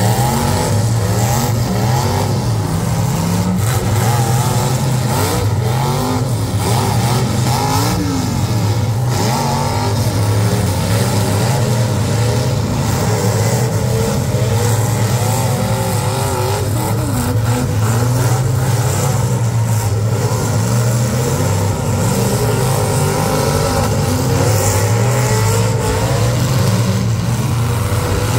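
Engines of several full-size demolition derby cars running and revving at once, their pitches rising and falling over one another under a steady low drone.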